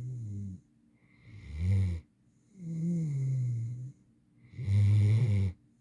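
An 8-month-old mantle Great Dane puppy snoring in a steady rhythm: pitched, buzzing breaths in and out with short quiet gaps between, a longer snore alternating with a shorter, louder one, four in all.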